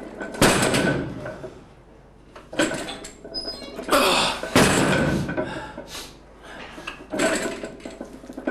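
Forceful breaths and grunts from a lifter straining through repetitions of a 270 kg barbell deadlift, with sharp knocks as the loaded iron plates touch down between reps.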